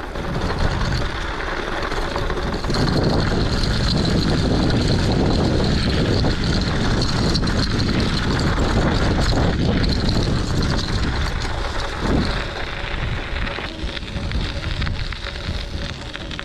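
Wind buffeting the microphone as a bicycle rolls over packed snow, with the tyres' rolling noise underneath. It grows louder about three seconds in and eases off near the end.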